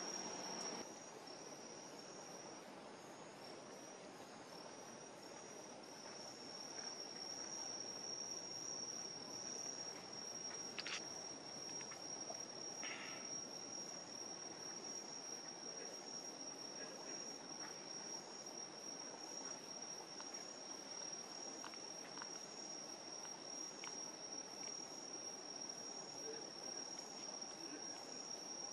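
Crickets trilling, one steady high-pitched trill that pulses at first and then runs on unbroken, with a faint fast ticking above it. A soft rustle stops about a second in, and a couple of faint clicks come near the middle.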